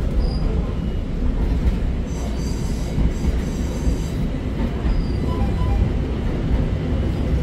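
Pittsburgh Red Line light rail car running along the track, heard from inside the car as a steady low rumble. Thin high wheel squeal from about two to four seconds in.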